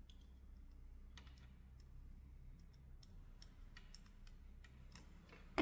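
Faint, scattered clicks of a screwdriver working the screws out of a motorcycle headlight's LED driver box, with one sharper click near the end.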